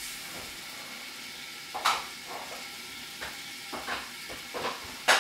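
Cauliflower sizzling in oil inside a lidded frying pan on a gas burner, a steady hiss broken by several sharp pops or clicks at irregular moments, the loudest about two seconds in and at the very end.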